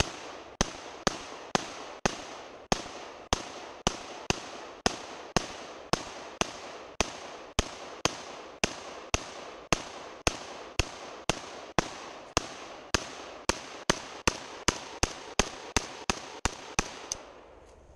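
AK-pattern rifle firing 7.62x39mm rounds semi-automatically, a long string of about 35 sharp shots at roughly two per second, quickening near the end, each with a short echo tail.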